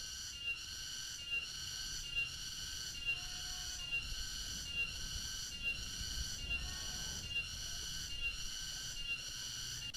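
Cicada (cenggeret) calling: a steady high buzz with a short pulse repeating a little faster than once a second.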